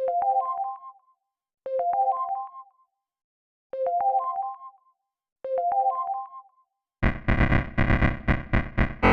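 A short rising run of electronic keyboard notes, a synthesized chime jingle, plays four times with short gaps between. About seven seconds in, a loud harsh distorted noise cuts in, pulsing rapidly.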